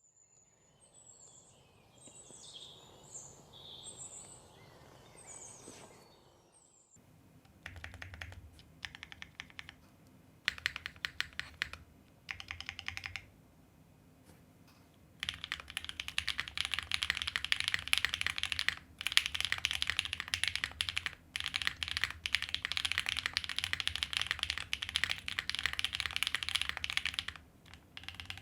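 Typing on a wilba.tech Thermal custom mechanical keyboard with lubed Drop Holy Panda tactile switches on an aluminium leaf-spring plate: short bursts of keystrokes from about seven seconds in, then steady, continuous typing from about fifteen seconds. The first seven seconds hold only a fainter, different sound.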